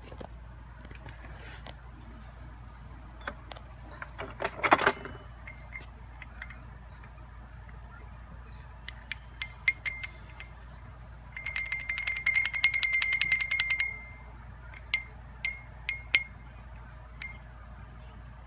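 Metal hole saws and kit parts clinking as they are handled. There are scattered sharp clinks, a louder knock about four and a half seconds in, and a rapid ringing metal rattle lasting about two seconds past the middle. A steady low hum runs underneath.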